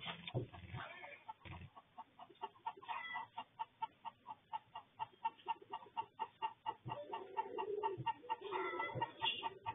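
Chickens clucking: a steady run of short clucks, about three or four a second, with a lower, drawn-out call joining in near the end.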